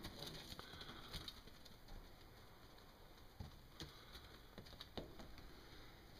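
Faint, scattered light taps of young goats' hooves on dirt and concrete, with a few sharper taps in the second half.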